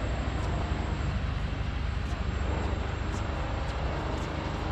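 Steady low rumble of outdoor urban background noise, with no distinct event standing out.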